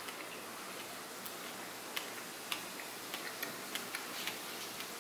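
Light, irregular clicks and taps, about ten of them, over a steady faint hiss: small items being handled on a kitchen counter.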